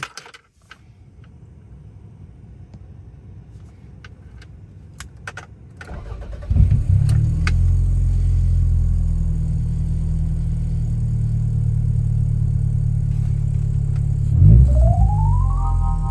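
A few clicks, then the Toyota Celica GT4 ST185's 3S-GTE turbocharged four-cylinder starts about six and a half seconds in and settles into a steady idle. Near the end it is revved, with a rising whine.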